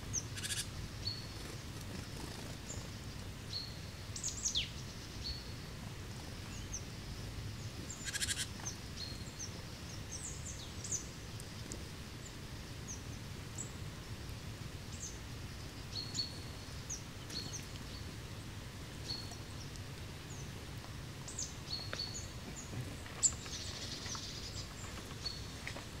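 Small woodland songbirds calling with short, high chirps scattered throughout, over a low steady rumble. Two brief crackling bursts stand out, about half a second in and about eight seconds in.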